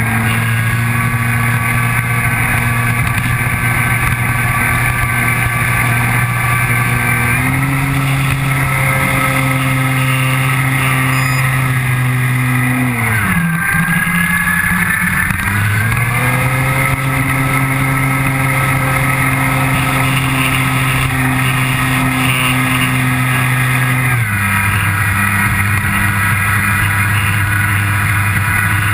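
A model airplane's motor and propeller running steadily, heard close up from a camera on the plane. The pitch steps up about seven seconds in, dips sharply and climbs back around the middle as the throttle changes, and settles lower again a few seconds before the end.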